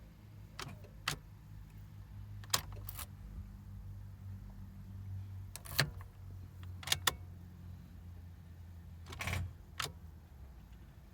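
1998 Jeep Cherokee XJ clicking as the key is turned without the engine cranking: about nine sharp clicks at uneven intervals, some in quick pairs, over a low steady hum. This is the sign of a battery too weak in the cold to turn the starter.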